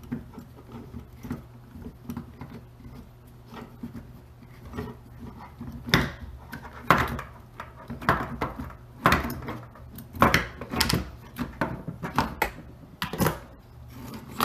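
Hand tools and small metal parts of a beetleweight combat robot clicking and clinking on a workbench during disassembly. Sparse faint ticks at first, then a run of louder, irregular sharp knocks and clinks from about halfway in.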